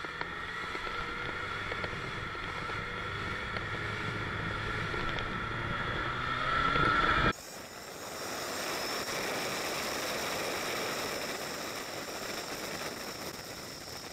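Motorcycle engine running in traffic, its pitch rising as the bike accelerates about six to seven seconds in. It cuts off abruptly at about seven seconds into a steady rush of wind noise at riding speed.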